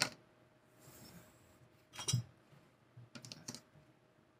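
Scissors and ribbon trims handled on a cutting mat, making a few sharp clicks and taps at irregular intervals. Near the end comes a quick run of clicks as the scissors snip a ribbon end.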